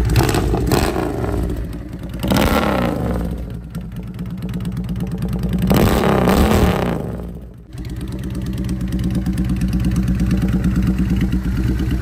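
Honda Shadow VLX600 V-twin running through tall straight pipes with fishtail tips. It is revved three times, each rev falling back, then settles to a steady idle for the last few seconds.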